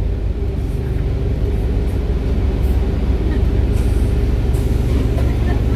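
Engine of an Alexander Dennis Enviro 400H double-decker bus, converted from hybrid to diesel-only drive, running with a steady low drone.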